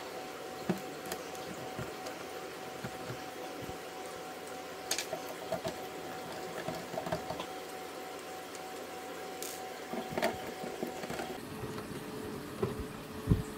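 Steady hum and wash of an aquarium's pump and filter, the hum dropping a little in pitch near the end, with a few small clicks of a screwdriver bit turning screws in a power supply's metal casing.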